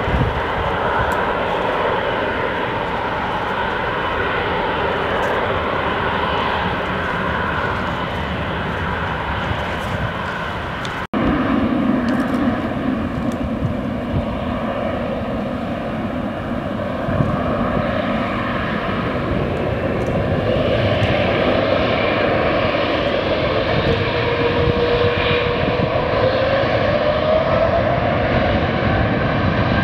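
Jet airliner engine noise, a steady dense rumble from aircraft on the runway. About eleven seconds in the sound cuts abruptly to a closer, louder twin-engine jet airliner on its runway roll, and a whine rises in pitch about two-thirds of the way through.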